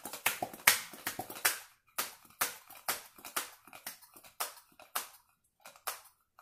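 Hand-pump oil sprayer being worked: an irregular run of short, sharp hissing puffs and clicks, several a second, thicker in the first second or so.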